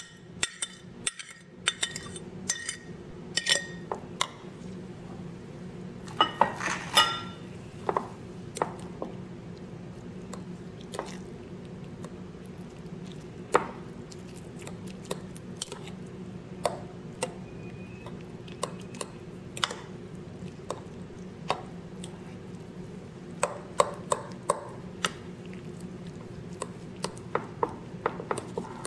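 Metal spoon clinking and scraping against a ceramic dish while stirring a raw egg, ground pork and salted fish mixture. The clinks are irregular, and several in the first few seconds ring briefly.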